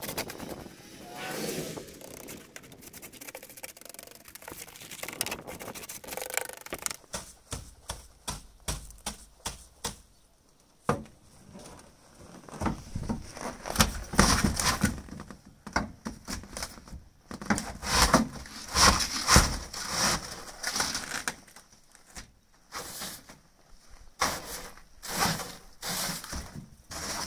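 Snow brush sweeping and scraping snow off a truck's hood and windshield in repeated, irregular strokes, sometimes several in quick succession.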